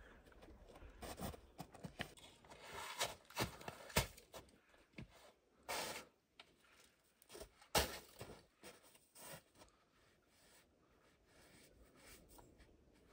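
Crunching and scraping of packed snow as snow is pressed onto an igloo dome by hand and a snow block is turned out of a plastic crate mould, with a couple of sharp knocks, about four and eight seconds in.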